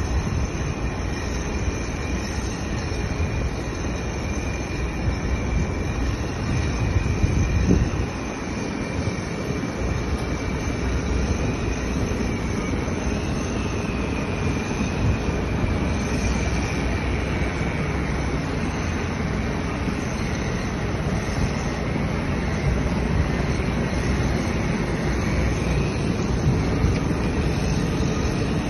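Steady low rumble of construction-site machinery, with a faint wavering high whine running through it.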